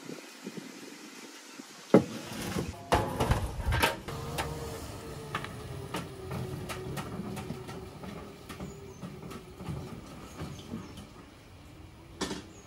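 A large aluminium pot is loaded onto an e-rickshaw's wooden floorboards with a loud knock and a few seconds of clattering. Then the electric rickshaw's motor whines steadily as it drives off, the whine sinking slightly in pitch, with scattered rattles and clicks and another knock near the end.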